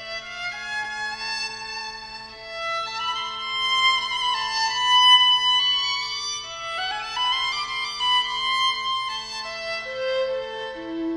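Two violins playing classical music together as a duet, bowed melodic lines moving against each other. About two-thirds of the way in, one part climbs in a quick rising run.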